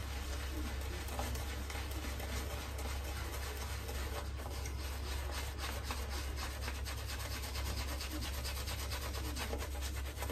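Synthetic-knot shaving brush building a face lather, swirled back and forth over wet stubble. It gives a steady wet rubbing and swishing, with many tiny crackles from the lather.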